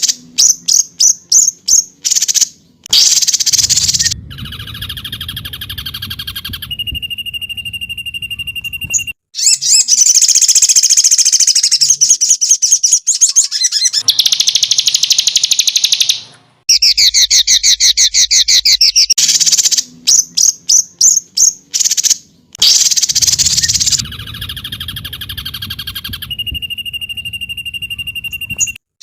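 Songbird training recording: rapid series of sharp chirps, fast trills and a steady high whistle, spliced into segments that cut off suddenly and repeat in a loop.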